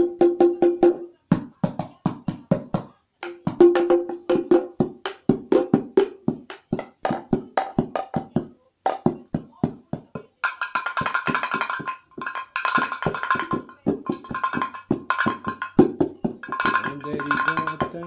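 Small African hand-percussion instruments played in a quick rhythm of sharp strikes, each carrying a short pitched tone. A few brief pauses break it, and about ten seconds in the strikes move to higher notes.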